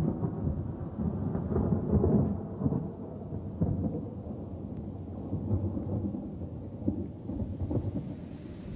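Thunder rumbling over rain, a storm effect that is loudest in the first couple of seconds and then eases off.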